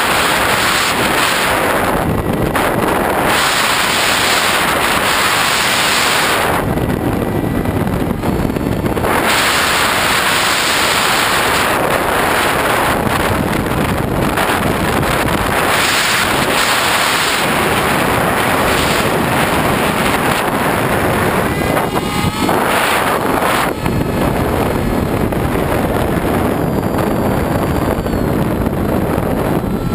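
Loud wind rush over the onboard camera of a foam radio-controlled FPV plane in flight, mixed with the run of its electric motor and propeller. The rush swells and eases several times, dropping away briefly about 7 to 9 seconds in and thinning near the end.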